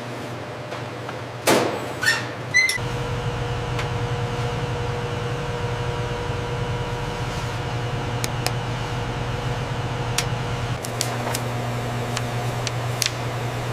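Steady hum of running machinery on a factory floor. Three loud sharp clanks come about one and a half to three seconds in, and scattered light clicks follow. The hum changes abruptly twice: just under three seconds in and again near the end.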